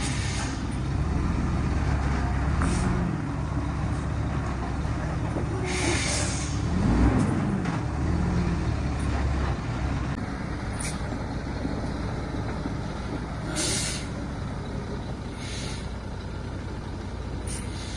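Loaded logging truck's engine running, rising and falling in pitch, with several short, sharp hisses of air from its air brakes.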